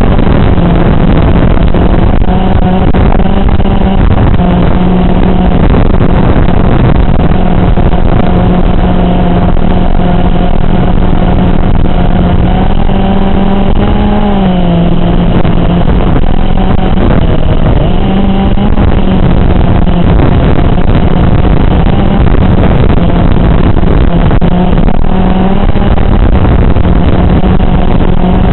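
5-inch FPV racing quadcopter's motors and propellers droning in flight over a steady hiss. The pitch holds mostly steady, dips and comes back up about halfway through, and wavers slightly again later on.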